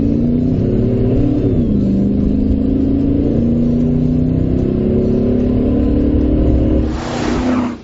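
2010 GMC Sierra's Vortec 5.3-litre V8 breathing through a Flowmaster Force II cat-back exhaust, heard inside the cab under open throttle: the engine note climbs, dips once about a second and a half in at an upshift, then climbs again. Near the end a short hiss joins in before the sound cuts off.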